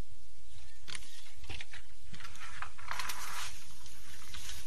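Brush and bamboo rustling and snapping as someone works through bushes cutting down bamboo poles: a few sharp snaps early, then a louder rustle about three seconds in, over a steady low rumble.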